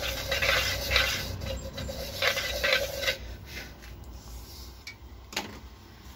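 A screwdriver is rolled and rubbed back and forth over the freshly glued spider of a 12-inch loudspeaker, pressing the spider into the glue. Quick scraping strokes run for about three seconds and then stop, and a single sharp knock follows a couple of seconds later.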